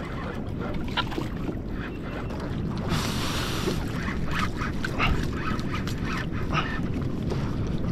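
A conventional lever-drag fishing reel being cranked against a hooked yellowfin tuna, giving many short squeaky bursts as the reel and drag work. A brief hiss comes about three seconds in, over a steady low rumble of wind on the microphone and water around the kayak.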